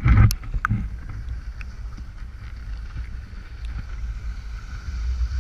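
Wind rumbling and water lapping on an action camera's microphone held just above the water surface, with a few sharp splashes in the first second. A steady drone from a jet ski running at a distance sits behind it.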